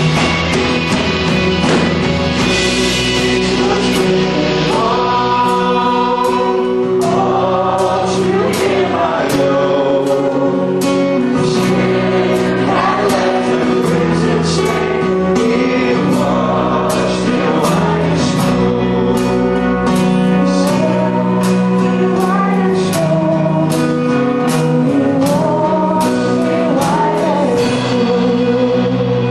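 A song with sung vocals over a steady beat.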